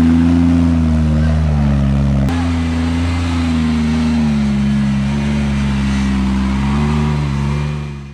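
Engine of an off-road 4x4 running under load, its pitch rising and falling as the revs change, fading out near the end.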